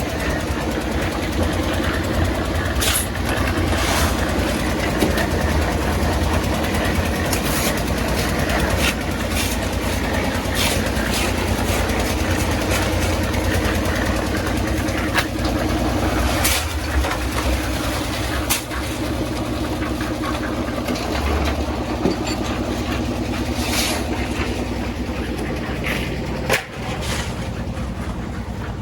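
An engine running steadily, with scattered sharp clicks and knocks over it.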